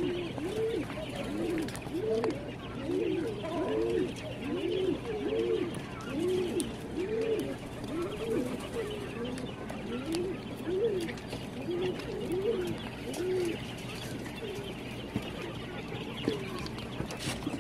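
Month-old quail calling, a run of short, low-pitched, rising-and-falling calls about two a second that thins out to a few stray calls after about thirteen seconds.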